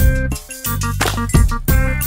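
Background music with a steady beat: drum hits over a bass line and short pitched notes.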